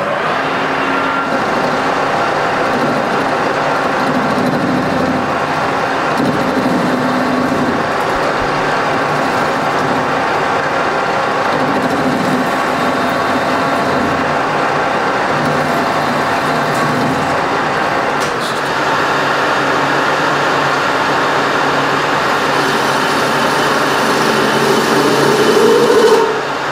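Colchester metal lathe running steadily at slow speed, its chuck spinning an off-centre triple clamp that is slightly out of balance. Near the end a louder, steadier tone joins the running sound.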